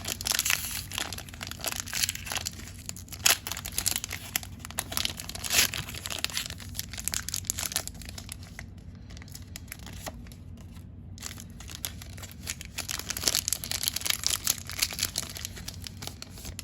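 Foil Pokémon card booster pack wrapper being crinkled and torn open, in two bouts of crackling with a quieter stretch around the middle.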